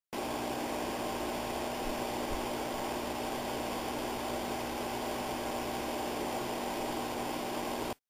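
Steady hiss with a low electrical hum and no distinct events: garage room tone.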